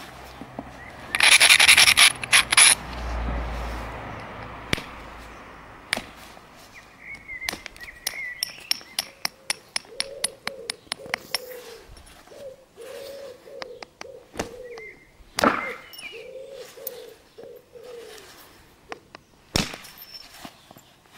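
Flint being worked by hand. About a second in comes a burst of harsh rubbing, typical of an abrader stone ground along the edge of a flint preform. A long run of sharp clicks follows, with a few louder single clicks later on.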